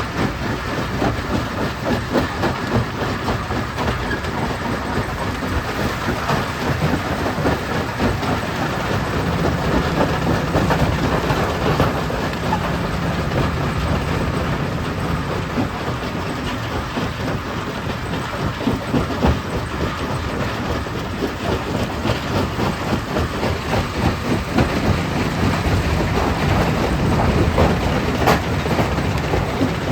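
Stone crusher running, with a loud, dense, continuous clatter of rock being broken and rattling through the machine.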